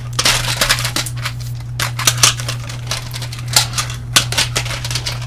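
Plastic IC shipping tubes of 74LS logic chips clattering and clicking against each other as they are shuffled and laid out by hand, irregular sharp knocks over a steady low hum.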